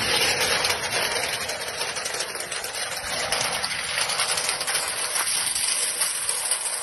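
Hail and heavy rain pelting down steadily, a dense crackling hiss made of countless small impacts.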